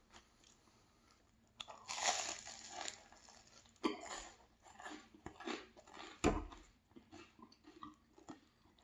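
A bite into a crisp, flaky croissant-dough pastry with crunchy baked edges, crackling loudly for about a second, then several shorter crunchy chews that fade toward the end, close to the microphone.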